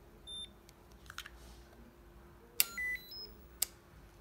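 Access-control card reader beeping as a smart card is presented: a short high beep about half a second in. About two and a half seconds in comes a sharp click, a short lower beep and a brief high one, then another sharp click a second later: the electric door lock clicking as access is granted.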